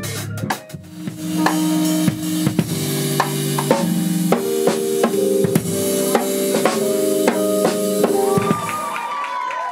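Live band playing: drum kit with bass drum and cymbals under held chords from keyboard and saxophone. The chords stop about eight and a half seconds in and the cymbals ring on and fade.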